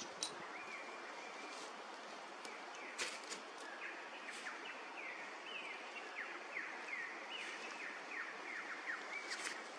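A bird calling: one held note about half a second in, then a quick run of short notes, each falling in pitch, repeated through the middle and fading out near the end. Under it is a steady outdoor hiss with a few faint clicks.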